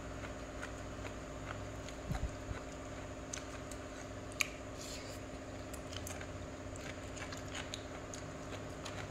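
A person chewing a mouthful of tam sua, spicy cucumber salad with soft rice noodles, with scattered small wet clicks and crunches, over a steady electric-fan hum.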